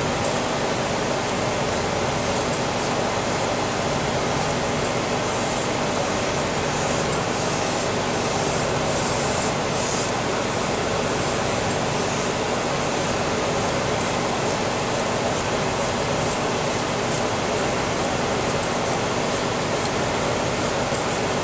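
Airbrush spraying food colouring in short strokes, a high hiss that swells and fades again and again, over the steady running of its small air compressor.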